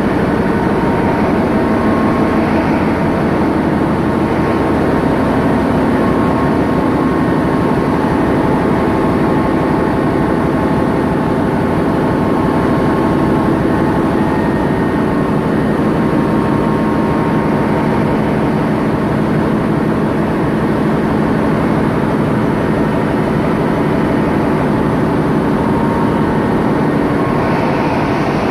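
Loud, steady roar of running diesel machinery in a large container ship's engine room, a dense unbroken noise with several steady hums mixed in and no change in level.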